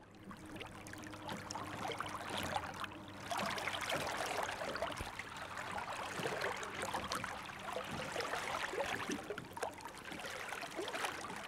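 Water trickling and splashing against the hull of a kayak moving across a lake, a dense patter of small drips and splashes, fading in over the first second.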